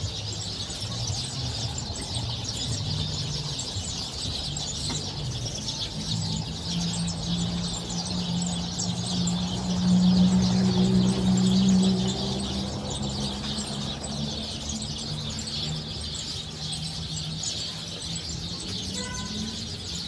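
Dense, unbroken chorus of a large mixed flock of small songbirds, house sparrows among them, chirping as they gather in a tree to roost for the night. Under it runs a low steady hum that swells for a couple of seconds about ten seconds in.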